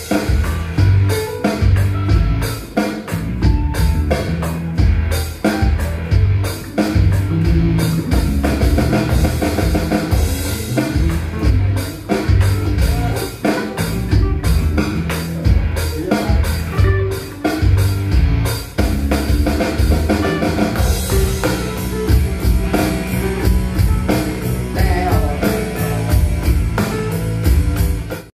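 Yamaha DTX450 electronic drum kit played with sticks alongside rock backing music with guitar and bass. From about two-thirds through, the drums settle into a fast, even run of strokes over a held low note. The sound fades out at the very end.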